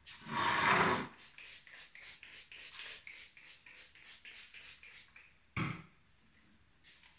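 A trigger spray bottle spritzing once, then a cloth wiping kitchen cabinet fronts in quick strokes, about three a second. One sharp knock comes near the end.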